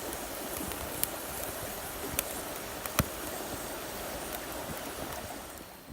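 Wood bonfire burning with a steady rushing hiss and sharp crackling pops, the loudest pop about three seconds in; the fire sound falls away near the end.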